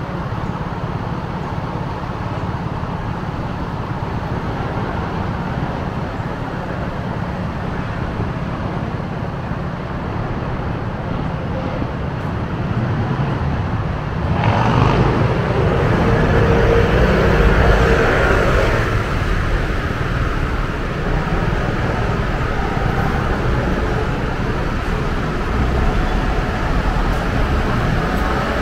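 City street traffic running steadily, with one vehicle passing close and louder about halfway through.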